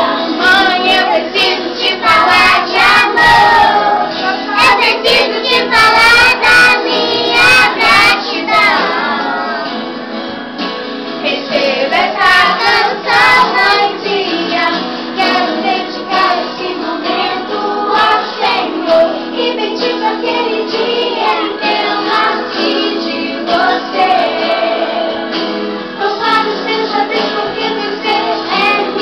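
A group of young children singing a song together over music. A few sharp clicks come in the first eight or nine seconds.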